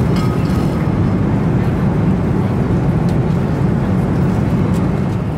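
Steady cabin noise of an Airbus A330-200 in flight, heard from a passenger seat: a constant low rumble of engines and airflow.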